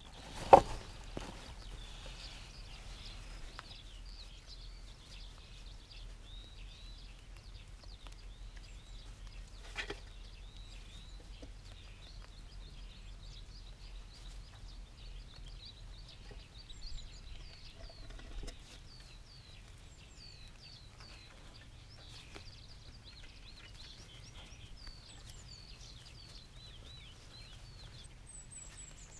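Small birds chirping and twittering over a steady outdoor background, with many short high calls throughout. A single sharp knock about half a second in, and a few softer clicks later.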